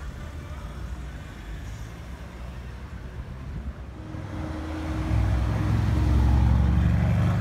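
Mercedes-AMG C63 Coupe's twin-turbo V8 running as the car rolls slowly past close by: a deep engine note that builds about four seconds in and is loudest near the end. Before it, ordinary street traffic noise from a passing van.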